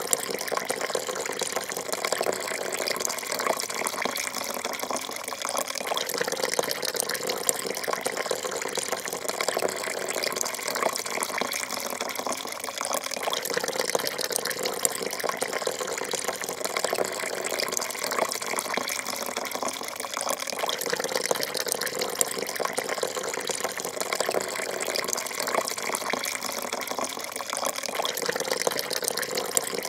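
Coffee pouring in a steady thin stream into a porcelain cup: a continuous splashing trickle of liquid falling into liquid, with no break.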